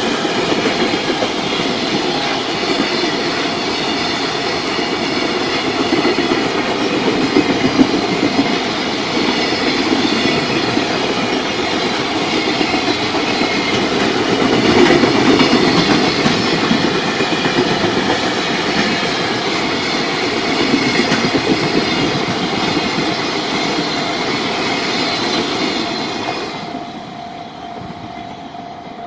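JR Freight container train of Koki flatcars rolling past at speed, its steel wheels clattering over the rail joints. Near the end the sound falls away as the last wagon goes by.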